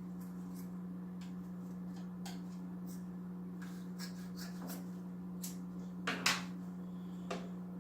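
Soft rustling and small clicks of hands handling and trimming a piece of fine filter pad media, with two louder rustles about six seconds in, over a steady low hum.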